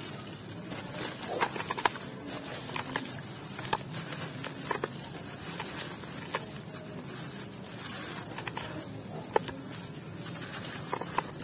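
Waterlogged red dirt crumbling in the hands over a tub of muddy water: irregular crunchy, gritty crackles with wet plops and splashes as chunks and grit drop into the water. The sharpest cracks come about a second and a half in and again near the end.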